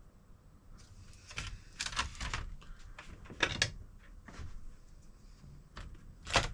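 A run of irregular clicks and knocks from handling tools and laptop parts on a workbench, with a sharper knock near the end.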